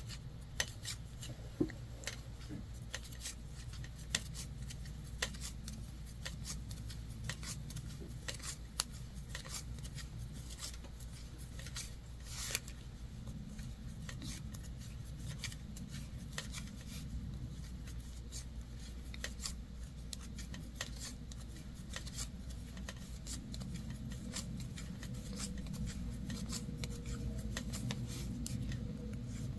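Wooden 7 mm knitting needles clicking together and yarn rubbing as a row of knit stitches is worked, with faint, irregular small clicks over a low steady hum.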